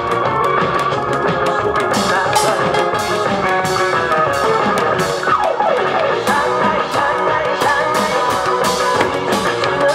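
Upbeat music with an amplified backing track and Korean barrel drums (buk) struck in a steady beat, with hand cymbals clashing.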